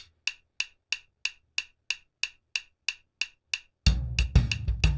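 Click track ticking steadily about three times a second. Nearly four seconds in, a digital drum kit comes in on top of it, with bass drum and snare hits.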